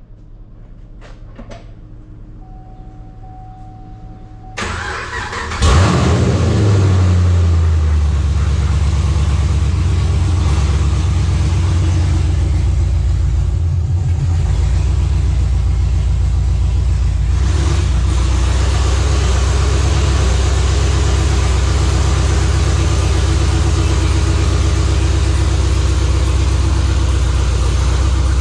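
A thin steady tone sounds for about two seconds, then a V8 car engine is cranked by the starter, catches about a second later with a brief rev that falls away, and settles into a steady idle.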